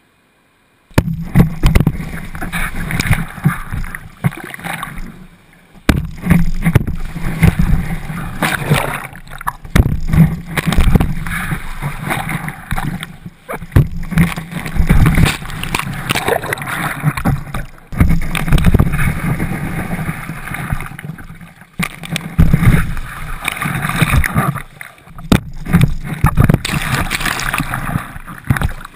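Shallow beach surf washing and splashing around a GoPro mounted low on a skimboard, with loud, irregular surges every few seconds. It starts suddenly about a second in.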